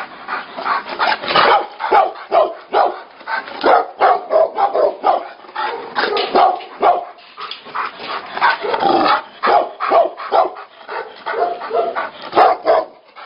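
Tibetan Mastiffs fighting: rapid, unbroken barking mixed with growls, several barks a second.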